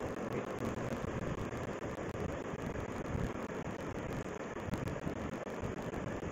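Steady background noise, a low rumble with hiss, picked up by a phone's microphone, with no distinct events.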